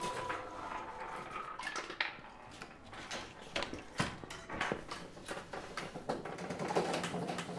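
Faint, irregular clicking and light rattling, like small hard objects tapping, in a quiet break of the background music. The music's ringing chime notes stop just as it begins.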